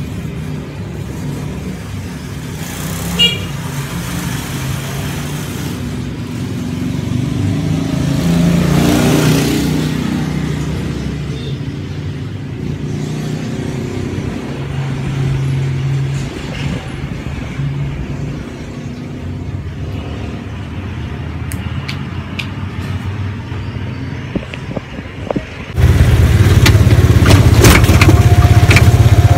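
A steady low hum, then about 26 s in a sudden switch to a much louder engine rumble of a motor vehicle heard from inside as it rides.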